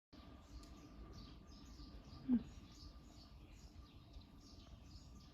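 Small birds chirping steadily, short high falling chirps about two or three a second. A brief low sound stands out once, about two seconds in.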